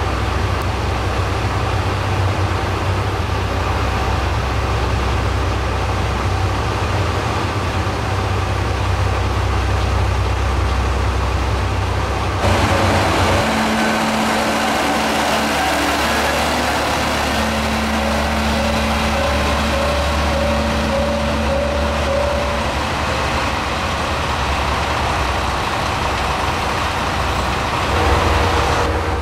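Diesel railcar engines running at a station: a steady low idling rumble for about the first twelve seconds, then a sudden change to a louder engine sound with steady whining tones that come and go, and another shift near the end.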